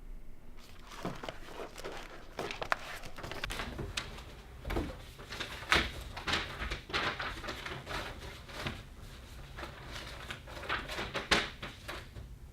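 A run of irregular clicks, taps and rustles, like objects being handled, with sharper knocks about six seconds in and near the end.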